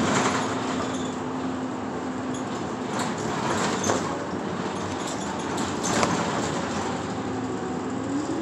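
Ride noise inside a city bus: steady engine and road noise with a low hum, broken by sharp rattles or knocks about three, four and six seconds in. The engine note begins to rise near the end.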